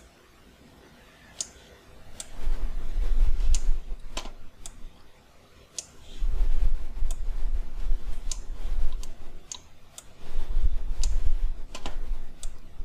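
Scattered sharp clicks, about one or two a second, from the mouse or pen as fur strokes are sculpted on a computer. From about two seconds in there are three stretches of low rumble, which are the loudest sound.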